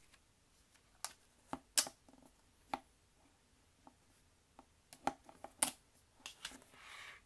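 Layered clear slime being handled, giving irregular sharp sticky clicks and pops, with a short rubbing sound near the end.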